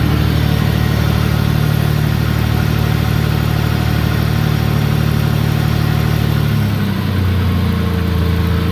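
Engine idling steadily with its exhaust reassembled after a welded repair to the broken manifold flange, running quiet with the exhaust leak sealed. About six and a half seconds in, the idle settles to a lower speed.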